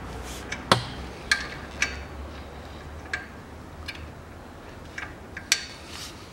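Sharp metallic clinks of wrenches on a Toyota 3S-FE camshaft and its pulley bolt while the bolt is being worked loose. About seven irregular clinks, the loudest about a second in and again near the end.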